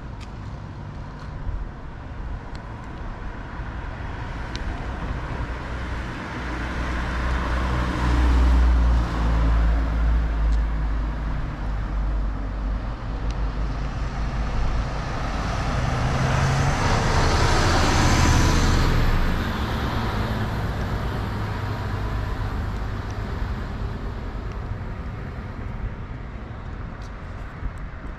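City bus coming up the road and driving past close by: a deep engine rumble builds about a quarter of the way in, then a loud rush of engine and tyre noise peaks as it passes, about two-thirds through, and fades away.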